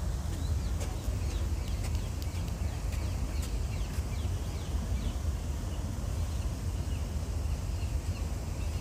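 Small birds chirping, many short falling chirps scattered throughout, over a steady low rumble.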